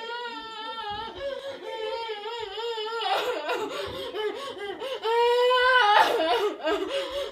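A young girl crying and wailing, her voice high and wavering, with a long loud wail about five seconds in.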